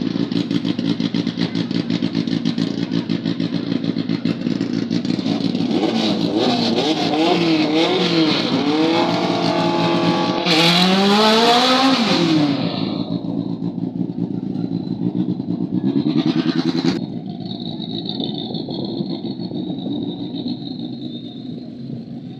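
Drag racing engines: steady running and idling. About six seconds in, an engine accelerates hard, its pitch climbing in repeated steps through the gear changes. It peaks loudest around ten to twelve seconds in, then drops away to a lower steady rumble.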